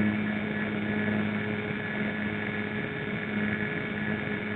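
Telemaster RC model airplane's motor running steadily in flight, a constant even hum.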